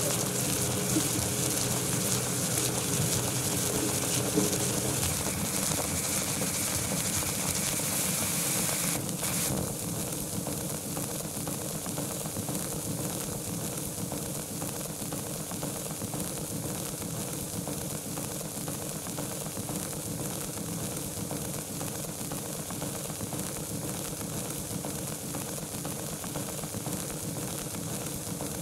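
Steady hiss and crackle of surface noise from an Edison Kinetophone phonograph-cylinder soundtrack, with no voices. The hiss drops a little about nine seconds in.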